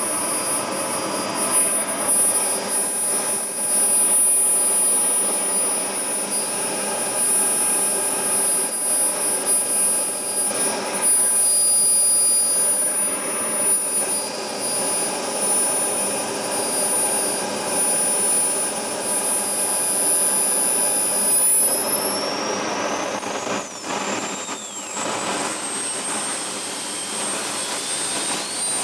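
Model jet turbine in the RC jet running with a steady high-pitched whine. About three-quarters of the way in, the whine rises in pitch over a few seconds as the turbine spools up to a higher speed, then holds there: the throttle being advanced after the idle has settled during a ground test run.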